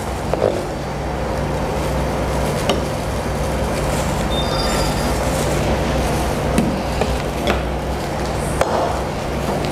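A chef's knife cutting fried tofu and then leafy greens on a plastic cutting board, giving a few irregular knocks of the blade on the board over a steady low background hum.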